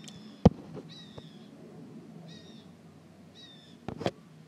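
A bird calling four times in short high notes, about once a second at first. A sharp knock sounds about half a second in and is the loudest thing heard; smaller knocks come near the end, over a low steady hum.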